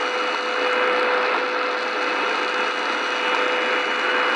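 Shortwave radio static from an Eton Elite Executive's speaker, tuned to WWV on 5000 kHz: steady hiss with WWV's steady low audio tone running through it, which stops near the end.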